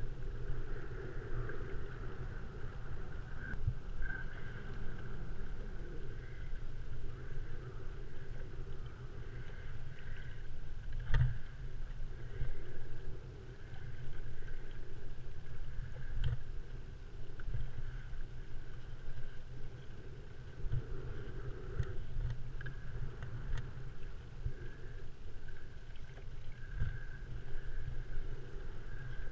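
Small waves lapping against the plastic hull of a Malibu 2XL sit-on-top kayak riding at anchor, with steady wind rumble on the camera microphone. A couple of sharp knocks come about a third and halfway through.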